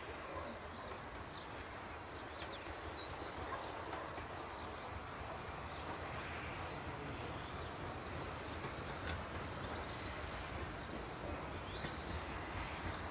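Distant steam locomotive working, heard as a steady low rumble, with a few short bird chirps over it.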